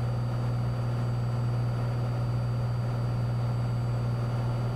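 Cessna 182's six-cylinder piston engine and propeller droning steadily under climb power, heard inside the cabin as an even, low hum.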